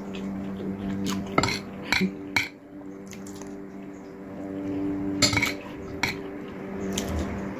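Metal spoon clinking and scraping against a plate while scooping up food, with several sharp clinks spread through. A steady low hum runs underneath.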